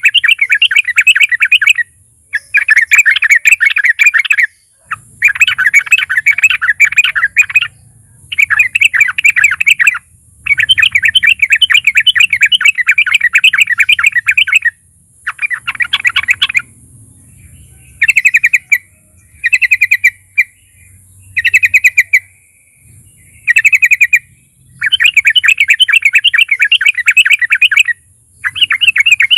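Yellow-vented bulbul (trucukan) singing in loud bouts of rapid, chattering warbles, each about two seconds long with short pauses between. There are a few shorter phrases past the middle. A faint steady high hiss runs underneath.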